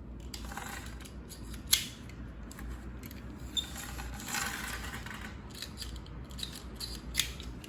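Carrera slot cars running on a plastic track: a noisy whir that swells and fades as the cars pass, with scattered rattles and clicks and one sharp click near two seconds in.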